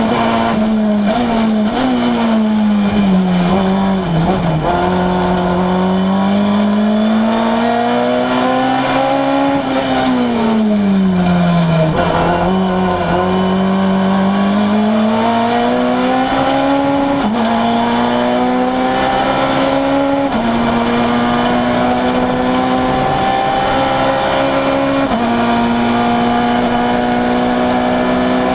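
Citroën C2 R2 Max rally car's four-cylinder engine, heard from inside the cabin, running hard at high revs. Its pitch sags a little about four seconds in, falls further and then climbs again around twelve seconds, and later drops in quick sudden steps.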